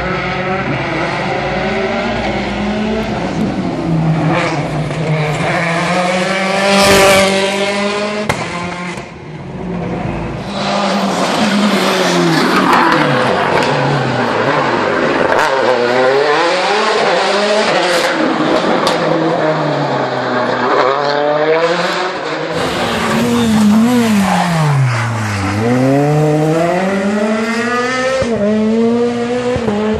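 Rally cars at full speed on a tarmac stage, their engines repeatedly revving up and dropping away through gear changes and lifts off the throttle. There is a sharp crack about seven seconds in.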